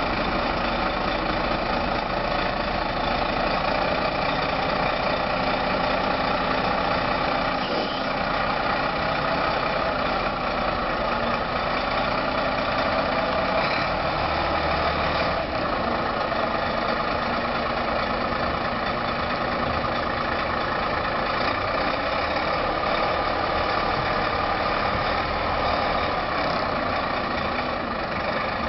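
Diesel engine of an Iveco tractor unit running steadily at low revs as the truck manoeuvres slowly into a workshop bay.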